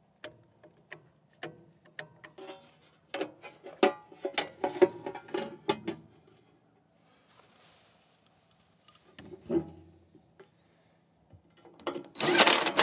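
Clicks and light metal knocks as a screwdriver works the blower's wire terminals and a sheet-metal blower cover is set in place on a furnace door. Near the end comes a loud burst of noise as a cordless drill drives a screw into the cover.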